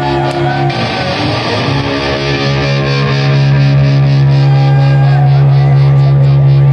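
Live hard-rock band playing loud: a long sustained, distorted electric guitar chord rings on over a steady pulse and grows louder about three seconds in.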